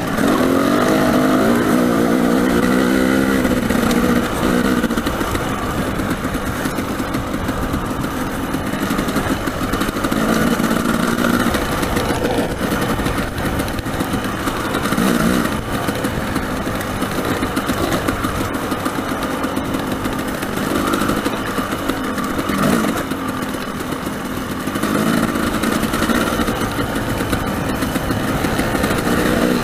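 Dirt bike engine running on a rough, rocky trail, its pitch rising and falling again and again with the throttle, over a constant rushing noise.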